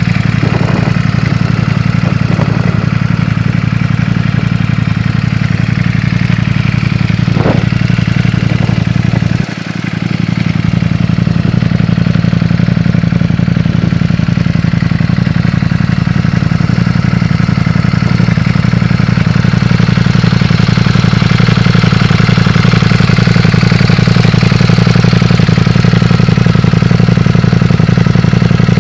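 Ducati Panigale V4's 90-degree V4 engine idling steadily, with a few short knocks in the first eight seconds and a brief dip in the sound about nine and a half seconds in.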